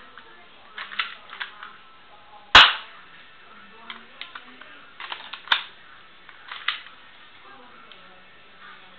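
Plastic clicks and snaps from a CYMA P.817 airsoft pistol being handled and put back together, with one sharp loud snap about two and a half seconds in and clusters of smaller clicks around one, five and six and a half seconds.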